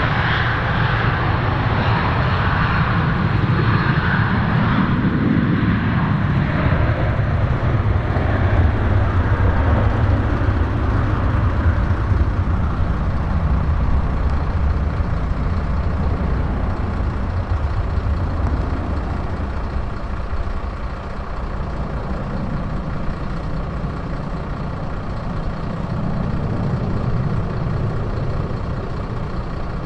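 British Aerospace Avro RJ85's four Honeywell LF507 turbofans at takeoff thrust: loud, steady jet noise with a deep rumble as the airliner rolls down the runway, lifts off and climbs away. The higher hiss eases after several seconds while the rumble carries on.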